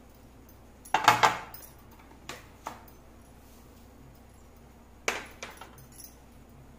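Small steel bowls clinking and tapping against a large steel mixing dish as ingredients are emptied into it. Two clusters of sharp metallic clinks, about a second in and about five seconds in, with a few lighter taps between.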